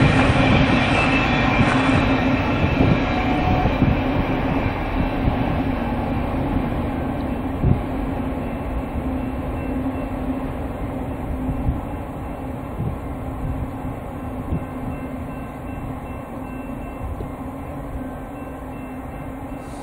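Freight train rolling along steel rails: a steady rumble and hum with scattered wheel clicks, fading steadily as the train moves away.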